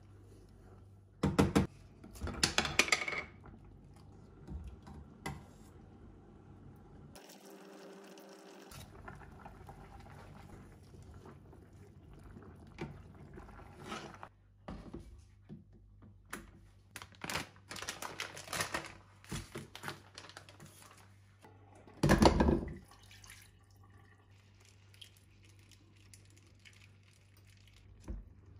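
Cooking on an induction hob: a wooden spoon stirring and clacking in a metal saucepan of simmering stew, then pans and utensils clattering, with one loud knock about 22 seconds in.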